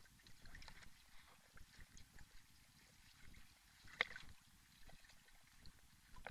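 Campfire crackling quietly, with scattered small pops and one sharp, louder pop about four seconds in.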